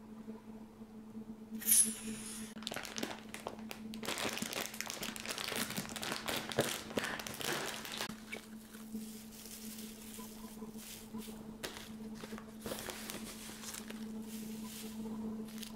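Crinkling and rustling handling noises with small clicks and knocks during food preparation, over a steady hum. There is a sharp crinkle about two seconds in, and the busiest stretch runs from about four to eight seconds in.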